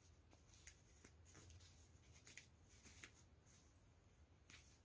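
Near silence: quiet room tone with a few faint, brief scratchy rustles.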